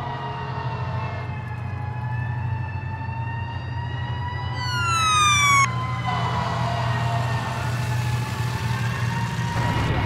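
Emergency vehicle sirens wailing in slow rising and falling tones over a steady low rumble. About halfway, a second siren sweeps quickly upward and cuts off suddenly.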